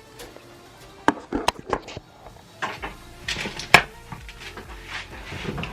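Kitchen clatter of dishes and utensils being handled: scattered sharp knocks and clinks, a cluster about a second in and the loudest single knock a little before four seconds.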